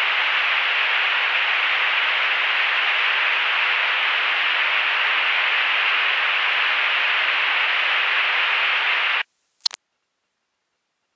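Steady static-like hiss of the Legend Cub's cockpit noise as picked up through the headset intercom feed, cutting off abruptly about nine seconds in. One sharp click follows, then silence.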